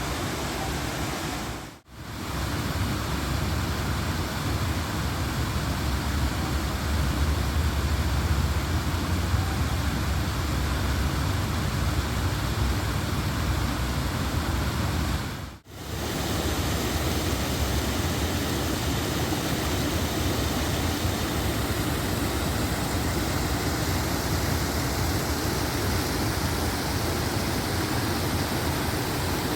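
Man-made garden waterfall: a steady rush of falling water that cuts out briefly twice, with a low rumble swelling in the middle.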